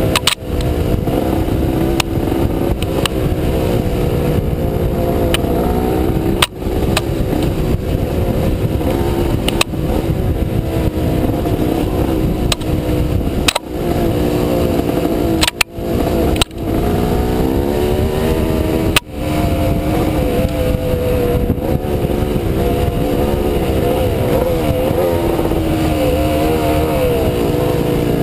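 Off-road motorcycle engine running hard, its pitch rising and falling with the throttle. There are several sharp knocks, with brief dips in the engine sound.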